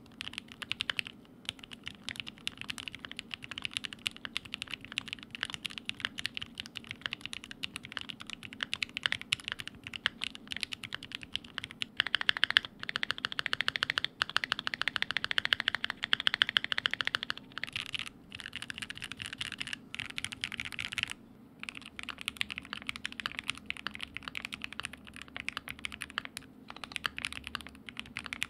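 Typing sound test on a Keychron Q2 aluminium mechanical keyboard fitted with lubed Gateron Box Ink Black V2 linear switches: a steady run of keystrokes, faster and denser for several seconds near the middle, with a short break about two-thirds of the way in.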